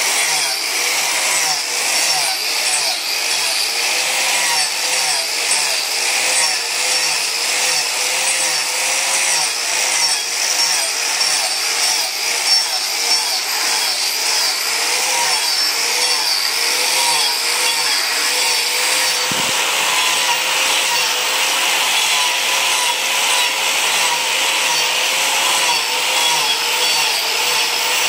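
Handheld angle grinder with an abrasive disc sanding and shaping hard red hardwood: a steady motor whine over a grinding hiss, its pitch wavering in a regular rhythm as the disc is pressed into the wood. A single low knock comes about two-thirds of the way through.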